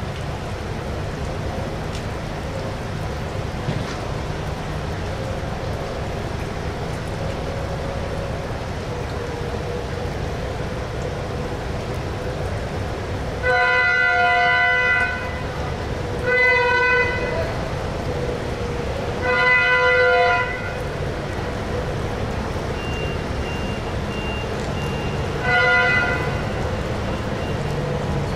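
Train horn sounding four blasts: long, short, long, short. A steady low rumble runs underneath.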